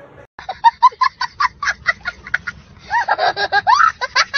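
A young child laughing hard: a quick run of short laughs, then longer laughs that rise and fall in pitch from about three seconds in.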